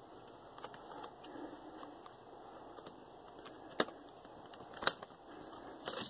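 Faint plastic handling noise and a few sharp clicks as the Dell Latitude D630's plastic cover strip above the keyboard is worked back into place.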